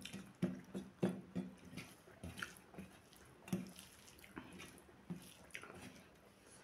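Close-miked eating sounds: irregular wet smacks and clicks of chewing, with fingers squishing and mixing rice on a steel plate.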